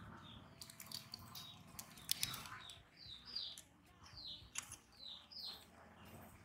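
Birds chirping in the background, a string of short, falling calls, with a few light clicks and scrapes of a small knife against a wooden cutting board and a plate; the sharpest click comes about two seconds in.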